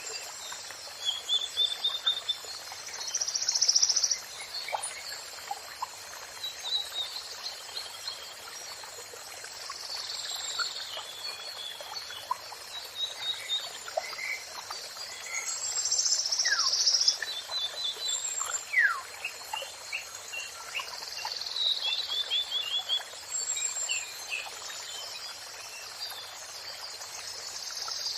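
Songbirds singing and calling over and over in short trills, chirps and quick downward-sweeping whistles, over a steady hiss of running water.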